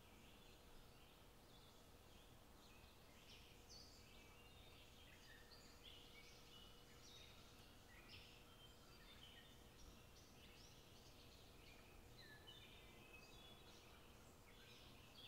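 Faint birds chirping, many short overlapping calls throughout, over near silence.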